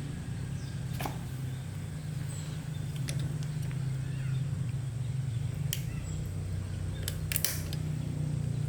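A machine running with a steady low hum, with a handful of short sharp clicks and taps scattered over it.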